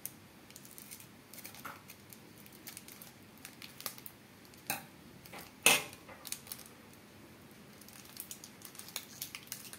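Scissors snipping open a foil Pokémon card booster pack, then the wrapper and cards rustling in the hands. A few short, sharp clicks come through, the loudest a little past halfway.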